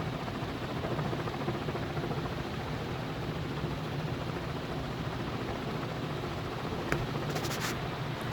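Canarm CP56 56-inch industrial ceiling fan running on high speed: a steady, loud rushing of air whipped by its blades, with a low hum, sounding like an airplane about to take off. A few light clicks about seven seconds in.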